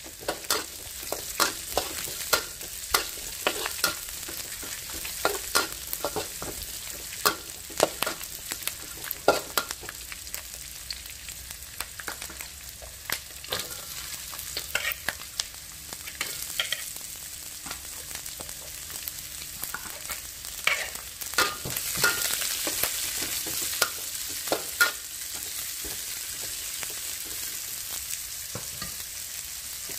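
Chopped onion, garlic and carrot sizzling in a hot wok while a steel spatula scrapes and clicks against the pan. The sizzle swells about two-thirds of the way through, and near the end the stirring stops and only a steady sizzle is left.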